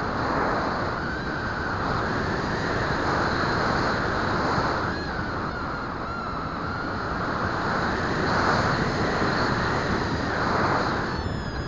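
Wind rushing over the microphone of the onboard camera on a Bixler RC plane in flight, a steady roar of noise that swells and eases every few seconds.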